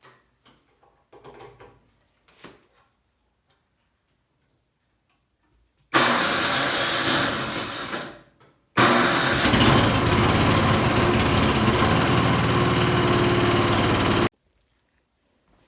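Troy-Bilt 30-inch snowblower engine, just fitted with a new carburetor, being started: a loud burst about six seconds in that dies away, then after a short gap the engine running steadily for about five seconds before it cuts off suddenly.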